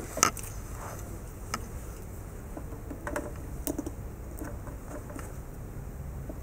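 Test leads with banana plugs being handled and pushed into the front-panel sockets of a relay test set: a string of irregular clicks and rattles, the loudest about a quarter of a second in.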